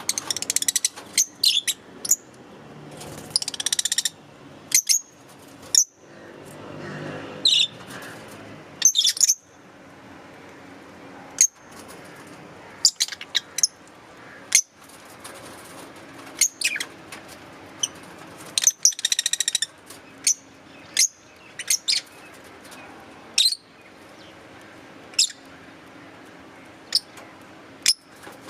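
Fischer's lovebirds chirping: many short, sharp, high chirps at irregular intervals, broken by a few bursts of rapid chatter.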